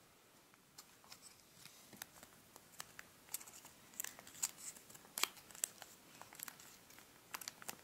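Faint crinkles and crackles of origami paper as fingers pinch and refold the model's small flaps, sparse at first and coming thicker after about three seconds.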